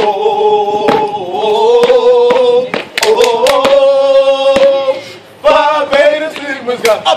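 Fraternity stepping: male voices chanting in long held, sliding notes, with sharp hand claps and foot stomps striking through. The singing breaks off briefly a little after the middle.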